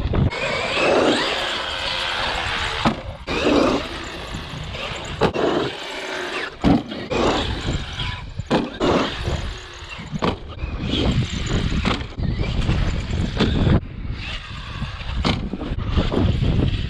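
Electric brushless motor of a Traxxas X-Maxx RC monster truck whining as it revs up and down over dirt jumps. Short thuds from the truck landing and bouncing come through several times.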